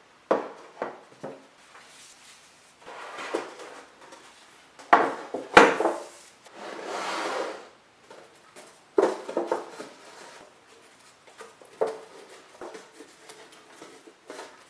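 Kitchen handling sounds: several sharp knocks of utensils or dishes against a hard, wooden-sounding surface, with two longer scraping or rasping stretches in between.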